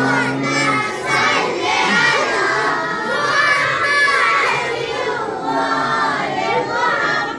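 A crowd of many voices shouting and chanting together, loud and continuous.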